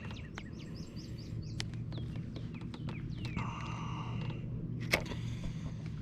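Birds chirping and calling in short high notes over a steady low hum, with scattered light clicks and one sharp click about five seconds in.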